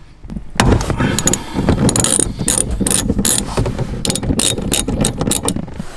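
Ratchet wrench with a 13 mm socket clicking rapidly as it is worked back and forth to unscrew a bolt; the clicking starts about half a second in.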